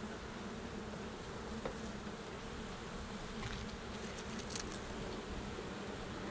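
Honeybees humming over an open hive, a steady even buzz, with a few faint ticks partway through.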